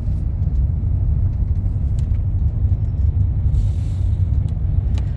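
Wind buffeting the microphone outdoors: a loud, uneven low rumble with a few faint clicks.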